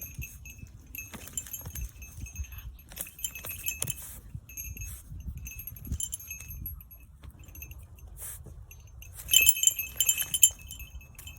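A dachshund digging, its metal collar jingling in repeated bursts with each burst of paw strokes, over a low rustling. The jingling is loudest about nine seconds in.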